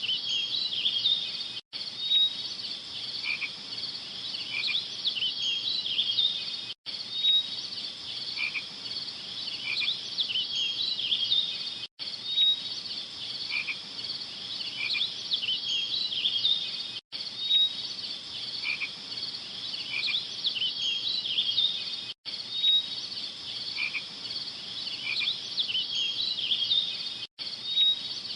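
Looped nature-ambience recording of a chorus of frogs calling, with some insect chirping, as a dense high chorus. The loop repeats about every five seconds, and each seam is a brief cut to silence.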